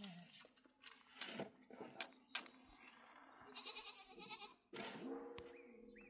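A goat bleating: a wavering call about halfway through, then a steadier, lower call near the end, with a few sharp knocks before them.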